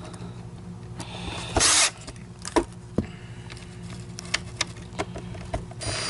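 Screws being driven into a carpet cleaner's plastic housing with a small power screwdriver: a faint motor whine, a short loud burst of noise about one and a half seconds in and another at the end, and scattered clicks as the tool and screws meet the plastic.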